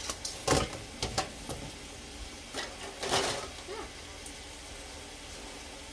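Kitchen handling at a skillet on the stove: a few sharp clicks and knocks of utensils and pan, then a short hissing burst about three seconds in, over a faint steady background.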